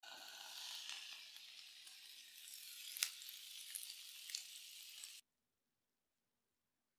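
Chicken and leek yakitori skewers sizzling in a hot sandwich maker pan, with a few sharp pops, the loudest about three seconds in. The sizzle cuts off suddenly a little after five seconds.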